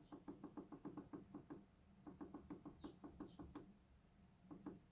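Rapid runs of light clicks, about seven a second, with a short pause between two runs and a few more clicks near the end: push-buttons on a solar inverter's control panel being pressed repeatedly to step through a setting.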